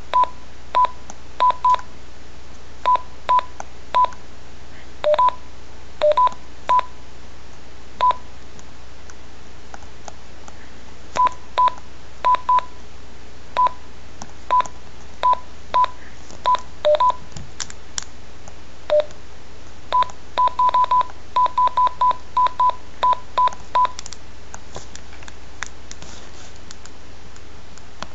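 Keypad beeps from a Relm RPV3600A+ portable two-way radio as its buttons are pressed: dozens of short single beeps in irregular runs, nearly all at one pitch with a few lower beeps among them. The beeps stop a few seconds before the end, leaving a few faint key clicks.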